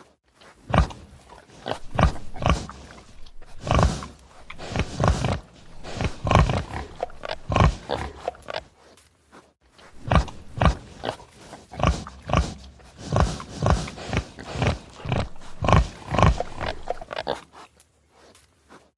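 Domestic pig grunting repeatedly: a string of short grunts, several a second, in bouts with a short pause about nine seconds in.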